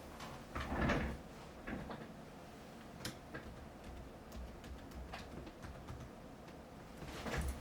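Gusts of strong wind buffeting the microphone in a few brief swells, about a second in and again near the end, with scattered light knocks and clicks between them.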